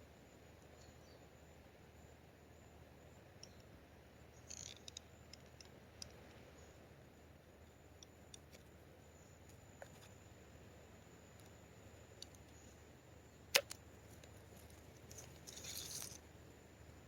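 Faint scattered clicks and two brief rustles over a low steady hiss, with one sharp click about thirteen seconds in.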